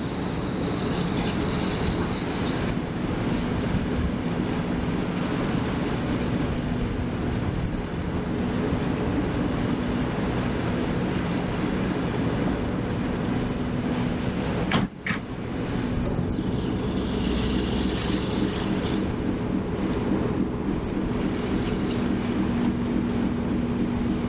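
A ferry's engine running steadily with an even low hum under a wash of wind and water noise, cut off briefly about fifteen seconds in before resuming.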